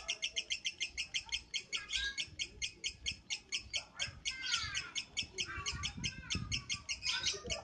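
Lovebird singing a long, unbroken run of rapid high chirps, about eight a second, during its afternoon warm-up singing session.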